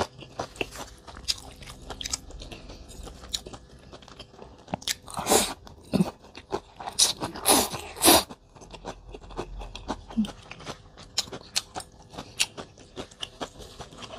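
Close-miked mukbang eating: chewing mackerel and rice-vermicelli noodles, with many small wet clicks, and several loud slurps of noodles in the middle.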